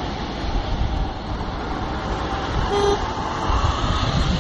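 Road traffic noise with a low rumble, and a short horn toot nearly three seconds in.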